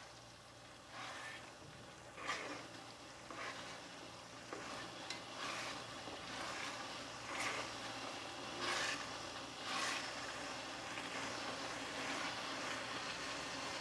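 Plastic slotted spatula stirring and scraping rice cooking in coconut milk in a nonstick pan, a stroke about once a second. Under the strokes the rice simmers with a steady sizzle.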